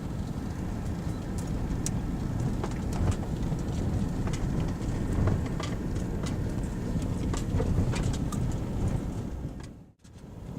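Car running with a steady low rumble and scattered sharp ticks. The sound cuts out briefly near the end.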